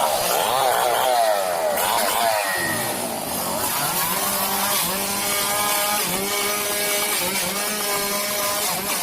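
Chainsaw engine revving up and down in quick swings, then held at steady high revs for several seconds, as when cutting through a fallen tree.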